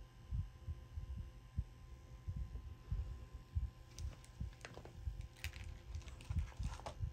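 Faint handling noise from beaded wire strands being bent around a seashell: irregular soft low thumps, then light clicks and rattles of beads and wire from about four seconds in, over a faint steady hum.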